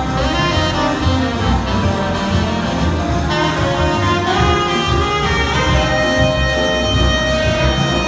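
Live big band playing a jazz piece: saxophones, trumpets and trombones together over piano and double bass, continuous through the whole stretch.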